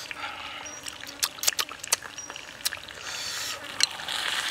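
Crispy grilled chicken wing being torn apart by hand: crackling skin and a scattered series of sharp snaps, with wet sauce sounds.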